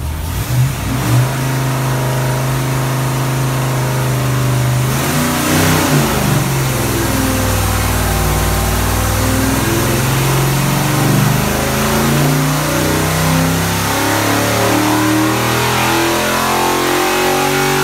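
GM LS-based 408 cubic-inch stroker V8 on an engine dyno making a full pull, its revs climbing steadily from about 1,100 RPM toward 6,800 RPM. Two brief surges come in the first second or so, then the engine note rises continuously.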